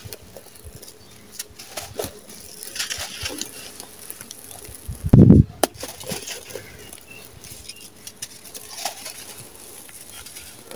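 Dry, crumbly sand-cement block squeezed and broken apart by hand, gritty crackling with loose sand pouring down. One loud crunch about halfway through, followed by a sharp click.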